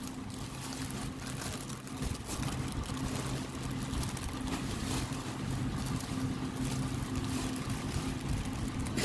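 Steady low mechanical hum, like a small motor running, with faint scattered light ticks and rustles over it.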